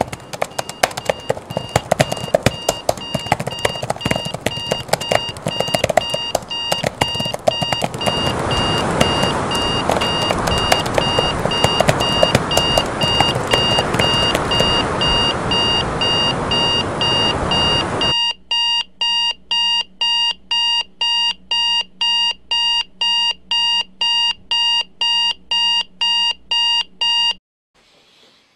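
Digital alarm clock beeping, a high tone pulsing about twice a second, until it is switched off suddenly near the end. For the first two thirds the beeping sits under a dense layer of rapid clicking and hiss.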